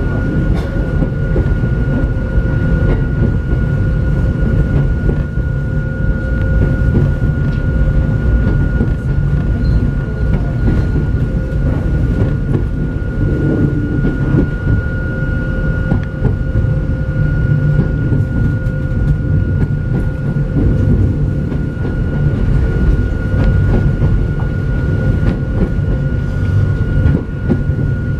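Hakone Tozan Railway Moha 1-type electric car Moha 106 running uphill on the mountain line, heard inside the cab: a steady low rumble of wheels and running gear with rattling clicks and a thin high whine throughout.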